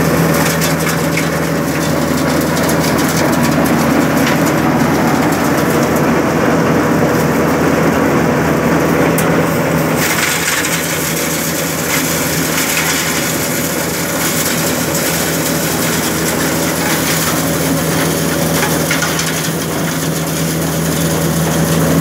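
Electric shredder-chipper machine running and shredding plant material: a steady motor hum under a continuous grinding, crushing noise. About halfway through, the grinding turns harsher and hissier.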